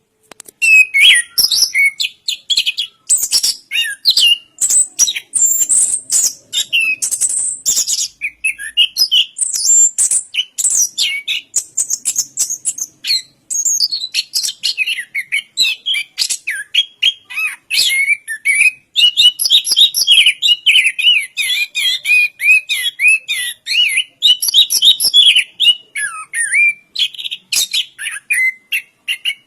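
Chestnut-capped thrush (anis kembang) singing a long, fast, unbroken run of varied chirps, whistles and trills, starting about half a second in.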